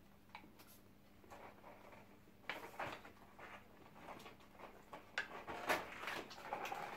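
Light clicks and rustling of a small cardboard gift box being handled and opened, sparse at first and busier from about two and a half seconds in.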